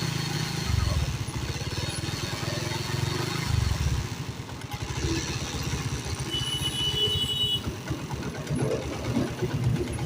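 Honda CD70 motorcycle's single-cylinder four-stroke engine running at low revs with a pulsing exhaust beat. It swells briefly about one second in and again about three and a half seconds in. This is the engine sound problem being diagnosed.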